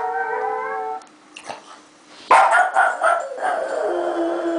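Japanese Chin howling. A held note breaks off about a second in; after a short pause a sudden loud yelping outburst comes, which trails into a lower howl that falls in pitch near the end.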